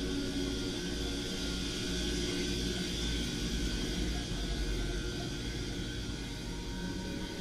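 A steady low rumble and whir, with a faint ambient music drone of held tones underneath.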